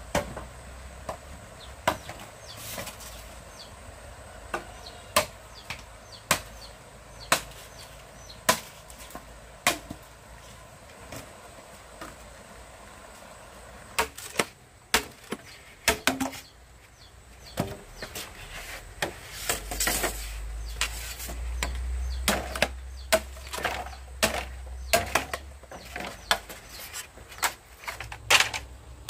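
Repeated chopping strikes on wood, about one blow a second at first, then faster and more irregular from about halfway through. A low rumble runs underneath for several seconds in the second half.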